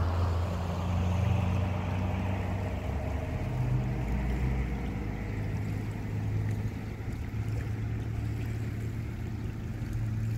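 Steady low drone of a distant motorboat engine running out on the water, over a haze of wind noise.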